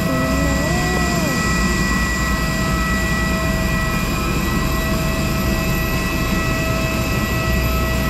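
Parked jet airliner on the apron, running with a steady whine: several fixed high tones over a constant low rumble.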